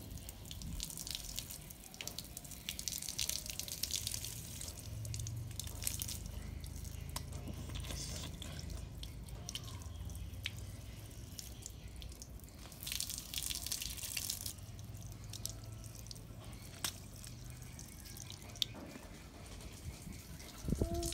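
Rain dripping and splashing on wet concrete: scattered sharp drips over a patchy wash of falling water. The wash comes heavier a few seconds in and again about two-thirds of the way through.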